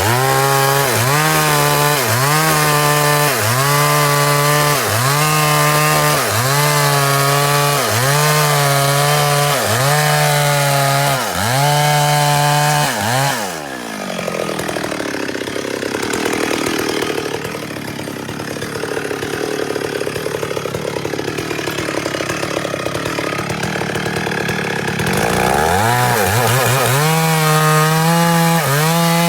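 Two-stroke chainsaw cutting wood at high revs, its pitch dipping and recovering about every second and a half as the chain loads in the cut. About 13 seconds in it drops to a low idle, then revs back up near the end.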